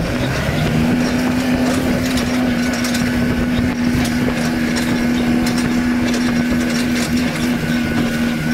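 Kubota compact tractor's diesel engine running under load while it pulls a rotary tiller. The engine speeds up within the first second, then holds a steady high speed.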